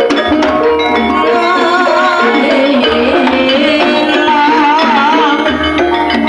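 Loud live percussion-led music played through a sound system, with repeated drum strokes under many held ringing notes and a wavering high melody line.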